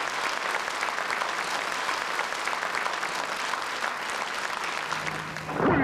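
A large seated audience applauding: a dense, steady clatter of many hands clapping. Near the end the clapping cuts off and a brief loud sound with a gliding pitch begins.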